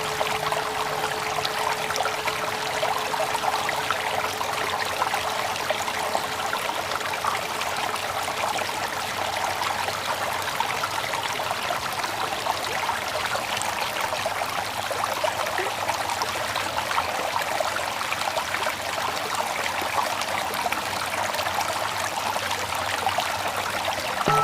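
Steady flowing stream water. Over the first few seconds the wavering hum of a mindfulness bell dies away.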